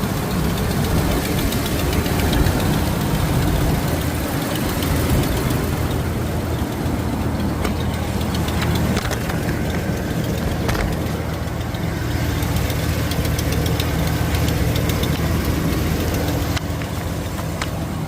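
Car engine idling cold with a loud exhaust leak at the front, a rapid ticking puff over the engine's hum. The leak, heard only while the engine is cold, is taken for a leaking exhaust manifold gasket or a cracked manifold.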